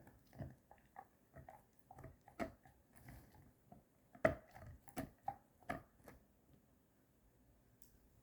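A Doberman sneezing and snorting through her nose in a rapid fit of short bursts, about two a second, the loudest a little past four seconds in. They stop about six seconds in.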